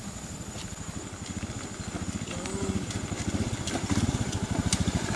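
Honda scooter engine running as it rides down a dirt track toward the listener, its fast, even putter growing steadily louder as it approaches.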